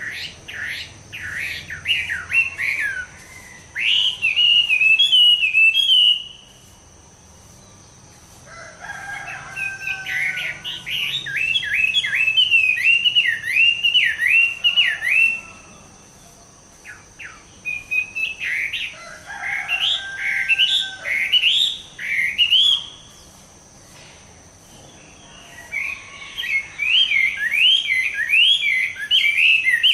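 Chinese hwamei (hoạ mi) singing: four long, loud phrases of rapid, repeated slurred whistled notes, with short pauses between them.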